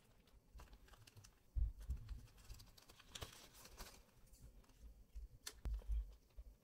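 Faint handling noise: scattered light clicks and a rustle, with low thumps a little over a second in and again near the end.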